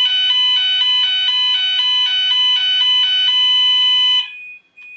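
Gent Vigilon fire alarm sounders going off after the detector is set off by test smoke: a fast two-tone warble over a steady high-pitched tone. It cuts off suddenly about four seconds in, leaving a fainter steady tone.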